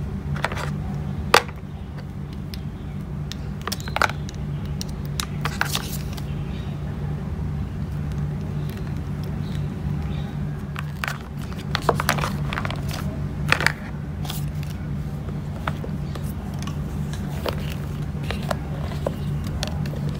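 Scattered light clicks and taps of hands handling a plastic power adapter, charging cable and phone box, over a steady low hum.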